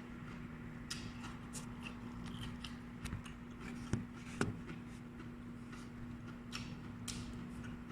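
Person chewing raw lettuce and broccoli close to the microphone, with scattered crisp crunches every second or so. A steady low hum runs underneath.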